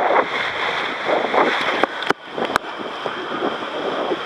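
Water rushing and splashing through an enclosed water-slide tube as a rider slides down it, with wind buffeting the microphone. Two brief knocks come a little past halfway.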